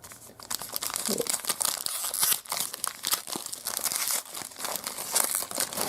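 Plastic trading-card pack wrapper crinkling and tearing as it is handled and opened by hand, a dense run of crackles.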